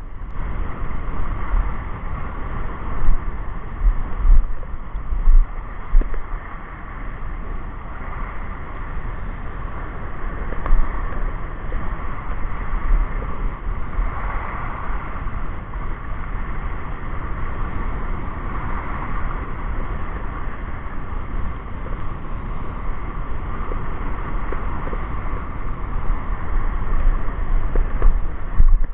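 Wind buffeting the camera's microphone in gusts, with a few heavy bumps in the first several seconds, over the steady wash of choppy sea waves breaking on a pebble shore.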